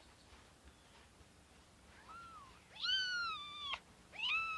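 Newborn kittens mewing in high, thin cries: a faint short mew about two seconds in, then two longer, louder mews, the last running on past the end. These are the distress mews of a day-old kitten struggling when it lies on its side.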